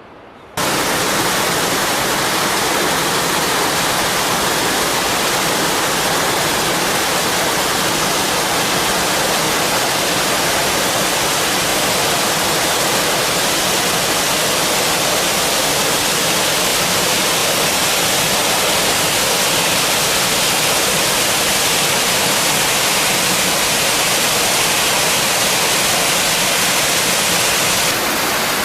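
Waterfall: the steady rush of falling water, cutting in abruptly about half a second in.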